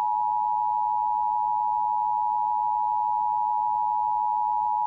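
Emergency Alert System attention signal: the steady two-tone alarm of 853 Hz and 960 Hz sounding together without a break. It marks the start of an emergency alert broadcast.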